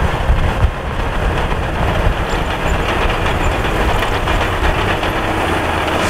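Liugong B160C crawler bulldozer running steadily, its diesel engine rumbling and its steel tracks clattering.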